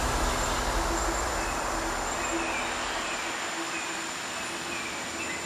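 Soundtrack music fading out: a sustained low sound dies away slowly, with faint short chirping notes repeating over it every half second or so.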